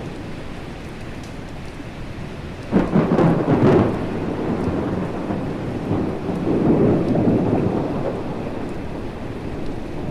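Thunderstorm: steady rain with a loud crack of thunder about three seconds in, followed by a second rumble swelling a few seconds later.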